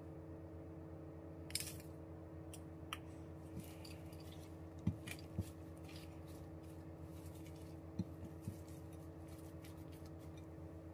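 Mixed vegetables tipped from a measuring cup into a glass bowl of mashed potato, with a brief rush about a second and a half in. A silicone spatula then stirs the mixture, giving a few sharp taps against the glass, over a steady low hum.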